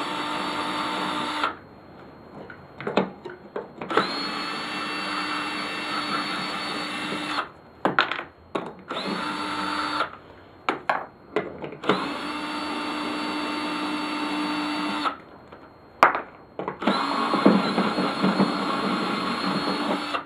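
Cordless drill backing out the lawnmower blade's bolts in five runs of one to three seconds each, each a steady whine at constant speed. Between runs come clicks and clatter as the bolts and the tool are handled.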